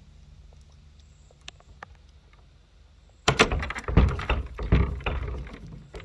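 Master Lock dial combination padlock clicking and clunking against an iron gate latch as it is pushed up and yanked down in an attempt to pop it open. A few faint ticks at first, then about three seconds in a quick string of louder knocks and rattles.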